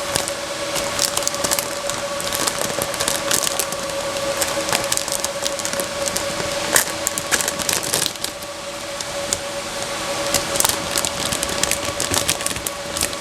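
Cardboard and plastic packaging crackling and rustling as a graphics card is unboxed, over a steady hum.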